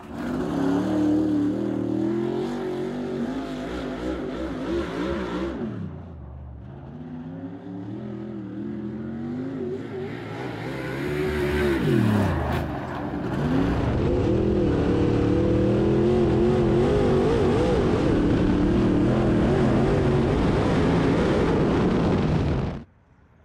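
Dirt-track modified race car's V8 engine running laps, its pitch climbing and falling again and again as the throttle is opened and lifted. It is held at a steady high pitch through the second half, then cuts off abruptly near the end.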